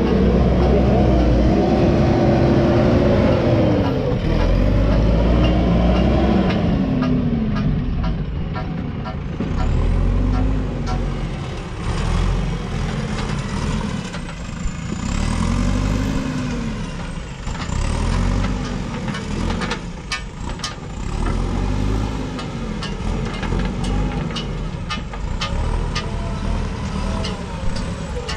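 JCB 3DX backhoe loader's diesel engine running under load as the machine works, its pitch rising and falling again and again about every two seconds as the hydraulics are worked. Scattered sharp knocks and clicks sound over it in the second half.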